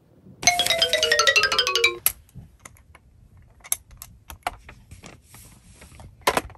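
A quick descending run of bright chime-like notes, then light plastic clicks and taps as the toy playset's panels are unfolded and handled, with a sharper click near the end.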